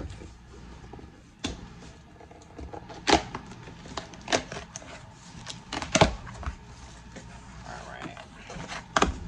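Cardboard shipping box being handled and opened: about five sharp knocks and taps, with rustling between them.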